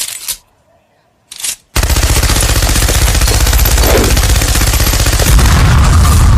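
Sustained rapid automatic gunfire, a machine-gun stream starting just under two seconds in after two short bursts and a brief silence.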